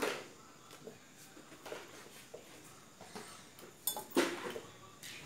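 A metal spoon scraping and clinking against a bowl of food, with a few sharp clinks and knocks, the loudest about four seconds in.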